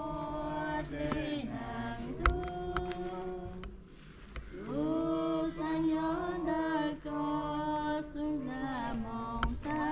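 Voices singing a slow, chant-like song in long held notes, with a short break about four seconds in. One sharp knock sounds a little after two seconds.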